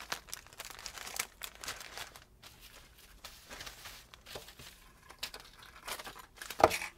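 Light crinkling and rustling of wax paper and plastic wrapping as hands handle brushes and tools on a work table, with small scattered clicks and taps and a louder knock near the end.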